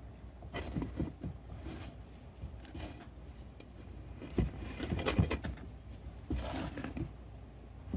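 Handling noise from stuffing a rubber inner tube down into a wheelbarrow tire: rubber rubbing and scraping with scattered light knocks.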